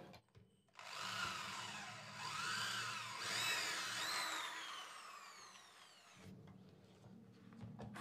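Corded electric drill boring into a PVC door for a tower bolt. Its motor whine rises and falls several times as the trigger is squeezed and eased, winds down after about five seconds, and is faint near the end.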